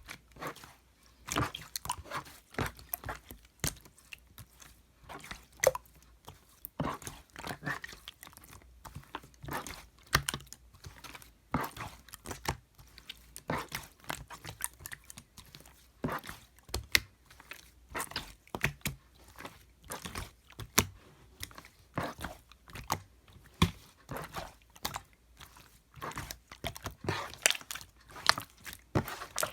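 Slime being squished, pressed and stretched by hand, making an irregular run of sticky wet clicks and pops.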